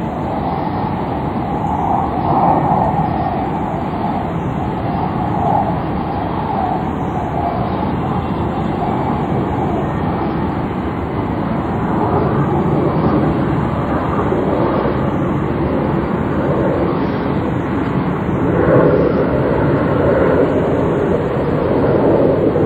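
Ship steam whistles and deeper ferry horns sounding together in overlapping long blasts, growing louder near the end. Heard on a noisy, noise-reduced copy of a cassette recording.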